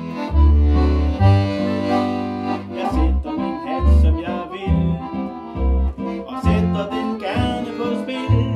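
Piano accordion playing an instrumental passage: a melody over chords, with low bass notes from the left-hand buttons about once a second.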